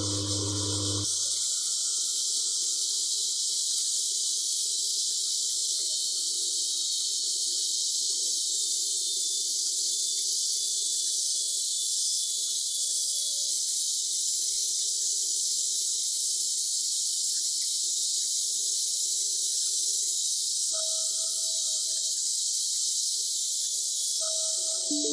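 A steady, high hiss that runs on without a break.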